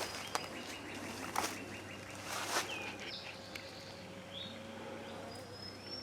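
Birds chirping and whistling, one whistle rising near the end, with a few sharp knocks in the first few seconds.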